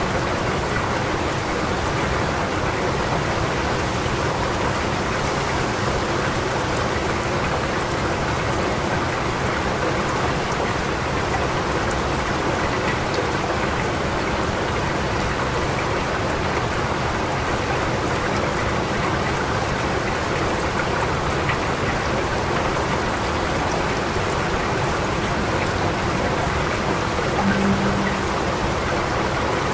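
Steady rain falling, an even hiss with no let-up. A brief low hum sounds once near the end.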